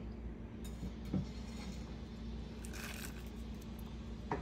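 Quiet kitchen room tone with a steady low hum and a few faint, brief taps and rustles as cumin is sprinkled into a glass blender jar of soaked chiles and garlic.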